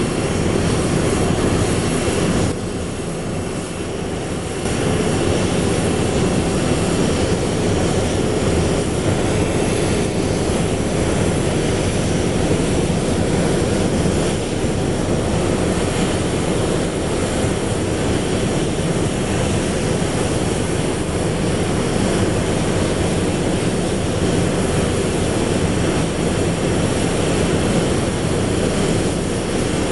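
Steady jet aircraft noise, a continuous low rumble and roar, during a Boeing 737's pushback. It dips briefly about three seconds in, then carries on unchanged.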